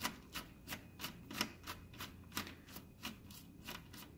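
Phillips screwdriver turning a screw out of a computer's speaker mount, with evenly spaced sharp clicks about three times a second as it turns.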